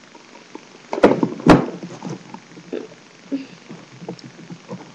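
Two sharp thumps about a second in, half a second apart, followed by soft rustling and light clicks: handling noise as a hand moves a plastic fashion doll close to the webcam microphone.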